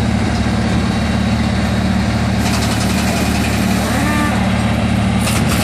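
MAN race truck's diesel engine idling steadily.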